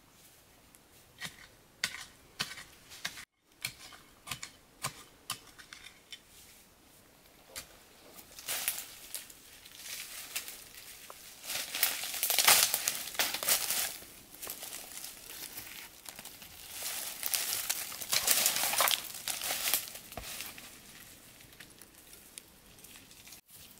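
Crinkling and rustling from something being handled, in bursts, with scattered light clicks in the first few seconds.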